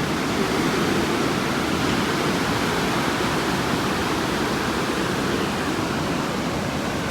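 Pacific Ocean surf: breaking waves blending into a steady, unbroken wash of noise.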